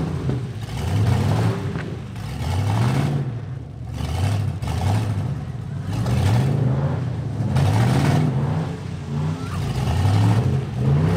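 Demolition derby pickup truck engines revving up and dropping back again and again, rising and falling in pitch every second or two as the trucks lunge and back up.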